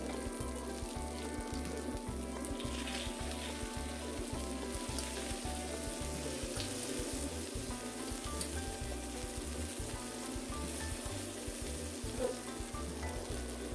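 Egg-battered beef slices (yukjeon) sizzling in oil on a flat steel griddle, with a few scrapes of a spatula as a piece is flipped about halfway through. Background music with a steady beat plays over it.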